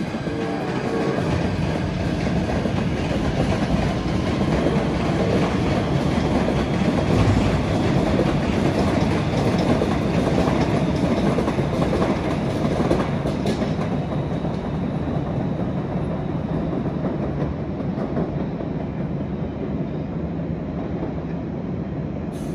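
A passenger train running past on the rails: a steady rush of wheel and rail noise. It starts abruptly, is loudest in the first half, and eases off over the last third.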